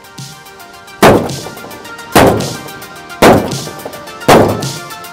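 Hammer blows striking the aluminium hull of a jon boat, four hits about a second apart, each with a short metallic ring, denting the aluminium.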